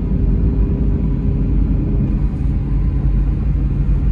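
Steady low road rumble of a car cruising on a concrete highway, heard from inside the cabin: tyre and engine noise with no sudden events. A low steady hum grows a little stronger near the end.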